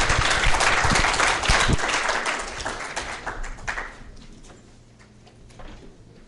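Audience applauding, many hands clapping at once, the clapping dying away about four seconds in.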